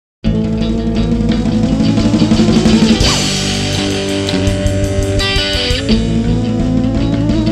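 Indie rock band playing an instrumental intro: electric guitars, bass guitar and drum kit, starting abruptly a quarter second in.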